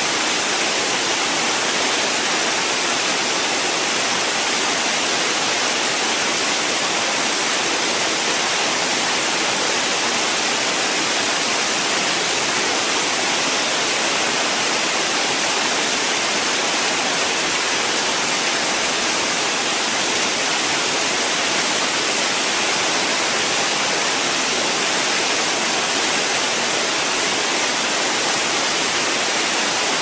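Waterfall rushing: a steady, unbroken hiss of falling water splashing onto rocks.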